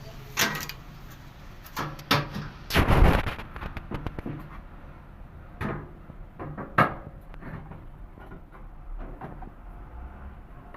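Irregular knocks and clunks of parts being handled on a washing machine under repair, the loudest and longest about three seconds in.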